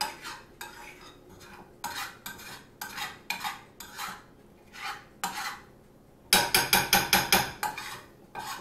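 Utensil scraping and stirring scrambled eggs around a frying pan, gathering the nearly cooked eggs in short strokes. About six seconds in comes a louder, quick run of scrapes, several a second.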